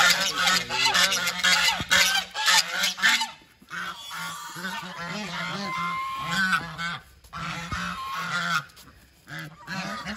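A flock of domestic geese honking: a dense chorus of overlapping honks for about the first three seconds, then quieter, scattered honks.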